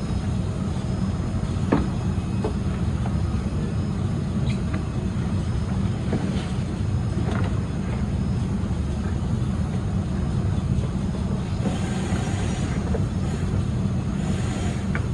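A steady low rumble throughout, with a few faint clicks and knocks as a plastic bumper cover is handled and pressed against its brackets.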